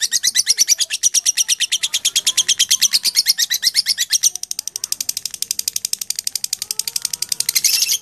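Fischer's lovebird chirping in a rapid, even run of high chirps, about a dozen a second. The run drops to a softer level about halfway through and stops abruptly at the end.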